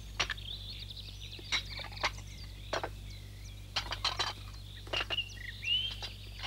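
Small songbirds chirping and twittering: quick short chirps and brief whistled glides, scattered irregularly.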